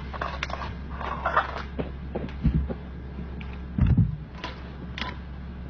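Metal fork clicking and scraping against a wire grill as meat is turned over an open fire, with a steady low hum underneath. Two dull thumps come a little past halfway and about four seconds in, the second one louder.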